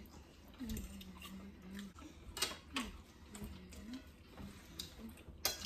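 Forks clicking and scraping on plates during a meal, a scattering of light ticks, with a few soft low hums in between.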